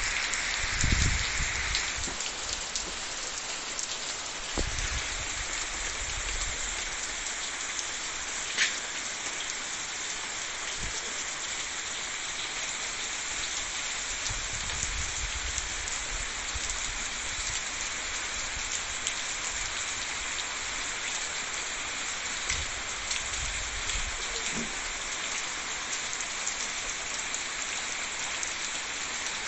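Steady rain falling, a dense even hiss, with a few low rumbles now and then.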